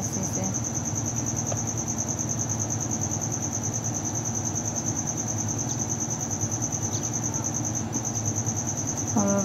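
Insects trilling: a steady, high, fast-pulsing trill that drops out briefly near the end. A steady low rushing noise runs underneath.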